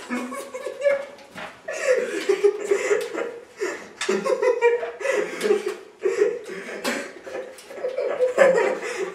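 Two young men laughing hard together in uncontrollable fits of giggling and chuckling.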